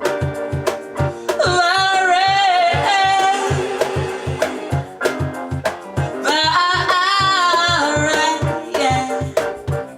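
Song with a steady drum beat and a woman's voice holding long, wavering notes twice, without clear words.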